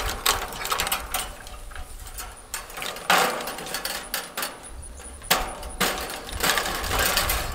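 Woven fixed-knot fence wire being worked by hand at a post, the wire rattling and scraping against itself in four short bouts, over a low rumble.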